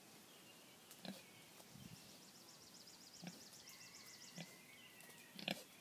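Faint, soft grunts from a kunekune pig, about one a second as it walks up, over near silence. A faint fast bird trill sounds in the background midway.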